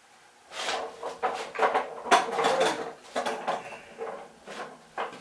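Clattering knocks and clunks of wood and metal workshop pieces being handled and set down, densest in the first three seconds and thinning out after.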